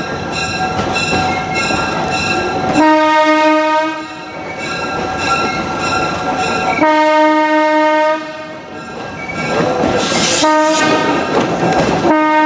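Locomotive horn sounding the grade-crossing signal: two long blasts, a short one and a final long one, the standard warning for a road crossing ahead. Under it is the rattle and clatter of the passenger cars rolling on the rails, with a brief hiss just before the short blast.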